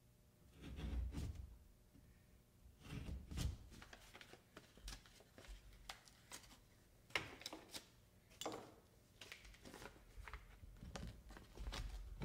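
Faint scrapes, taps and paper rustles of a drywall patch being handled and pushed into the hole in the wall, with a few low bumps.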